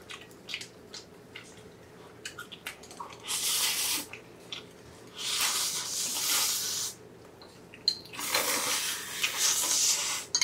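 Bibim-myeon noodles slurped in three long, loud slurps, the first about three seconds in and the last two each lasting nearly two seconds. Small wet chewing clicks come before them.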